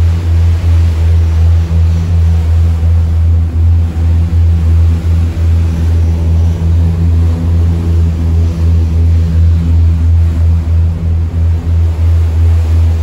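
Passenger ferry's engines droning inside the cabin: a loud, steady low hum that pulses about twice a second.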